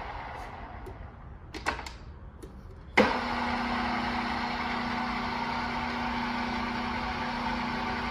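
Rockwell 24-inch geared head drill press winding down, with a couple of clicks from its controls. About three seconds in, a sharp click and the machine starts again and runs steadily with a steady hum.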